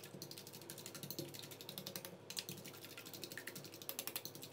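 A fork beating raw eggs in a stainless steel bowl: rapid, light clicking of the tines against the metal.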